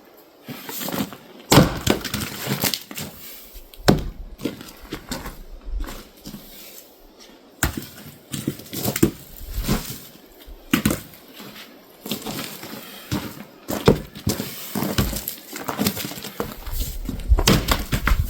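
Firewood being split on a splitting stump: a series of sharp, irregular heavy blows into wooden rounds, with lighter knocks and clatter of split pieces between them.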